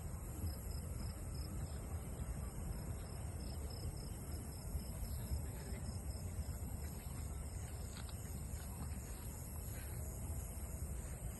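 Outdoor ambience: a steady low rumble with insects chirping high and continuously over it, including a rapidly pulsed chirp for the first few seconds.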